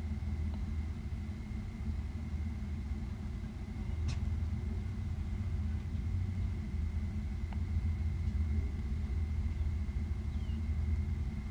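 Steady low outdoor rumble, with a faint thin steady high tone above it and a couple of faint ticks.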